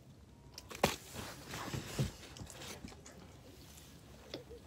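Crunchy snack being bitten and chewed close to the microphone for ASMR: a sharp crunch about a second in, crackling chews, and another crunch about two seconds in.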